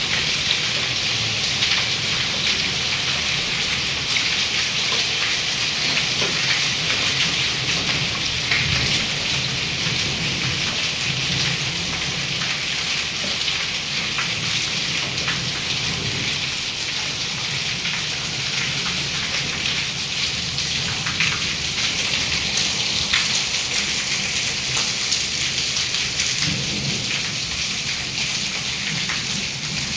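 Heavy rain mixed with hail falling and hitting hard surfaces: a steady, dense hiss flecked with many small sharp ticks.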